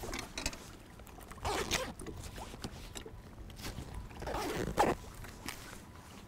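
A zipper run twice: a short rasp about a second and a half in and a longer one just after four seconds.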